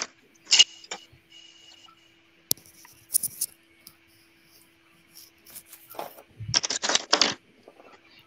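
Scattered small clicks, taps and scrapes of pens and drawing tools being handled on desks, with a louder burst of rustling and handling about seven seconds in. A faint steady electrical tone runs underneath.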